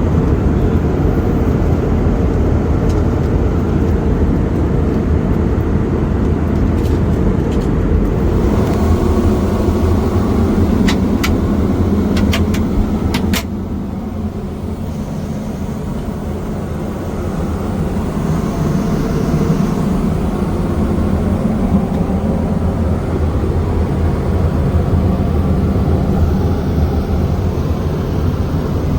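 Steady cabin noise of an Airbus A320 in flight, the engines and rushing air making a deep, even drone. A few sharp clicks come about eleven to thirteen seconds in. Just after them the noise drops a little for a few seconds, then returns.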